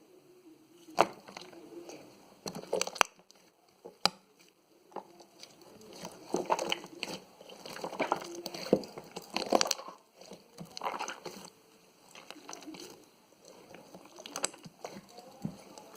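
A sticky Gelelé jelly toy handled and pressed by hand on a table: irregular squelching and crackling, with a few sharp taps and clicks, loudest about a second in.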